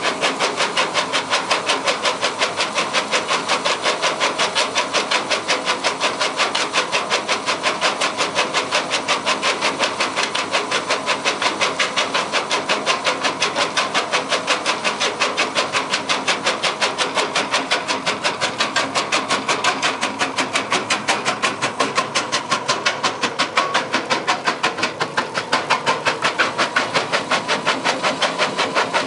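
MB BF70 jaw crusher bucket on an excavator crushing rock, its jaw working in a fast, even clatter of sharp knocks while crushed gravel pours out beneath it.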